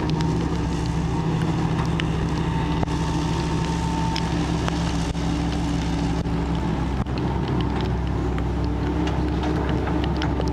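Heavy diesel engine running steadily, its pitch shifting slightly about seven seconds in, with a few faint clicks and knocks.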